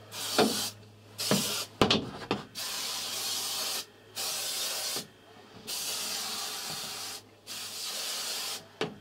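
Aerosol can of spray adhesive hissing in a series of bursts, each about half a second to a second and a half long, with short breaks between them, as glue is sprayed into a van's wall cavity. A few light knocks come between the bursts.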